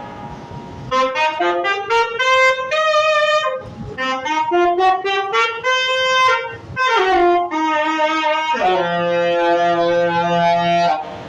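Saxophone playing a melody of quick runs and short phrases, ending on one long held note.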